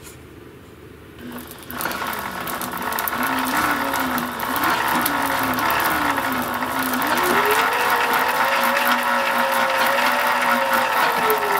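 Zero MX electric motorcycle's motor and chain drive spinning the raised rear wheel under throttle. The sound starts about a second and a half in, with a whine that wavers, rises in pitch about seven seconds in, holds high and eases off a little near the end, over the whir of the spinning chain and sprocket.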